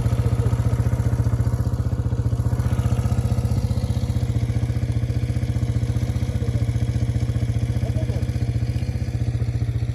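Vehicle engine idling steadily, with a fast, even beat.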